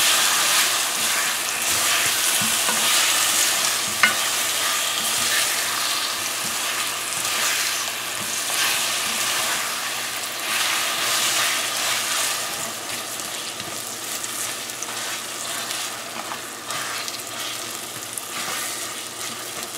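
Mango chunks frying in hot oil in a heavy karahi, sizzling as a silicone spoon stirs and scrapes them around the pan. The sizzle slowly grows quieter, with one sharper knock about four seconds in.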